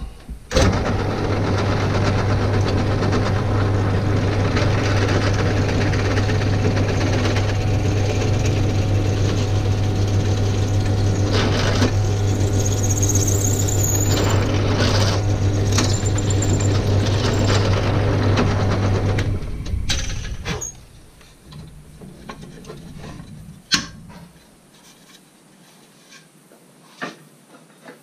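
Benchtop drill press motor running steadily with a strong low hum while the bit bores a hole through a wooden whirligig wing block. About twenty seconds in it is switched off and spins down. A few sharp clicks follow.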